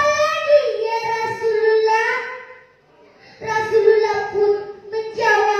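A young girl singing a melodic line in long held notes, in two phrases with a short breath between them.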